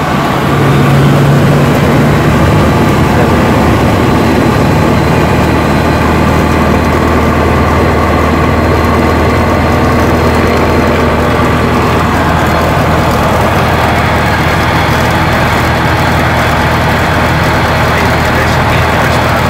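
Light seaplane's piston engine and propeller running steadily, heard from inside the cockpit, with a slight rise in engine note about a second in.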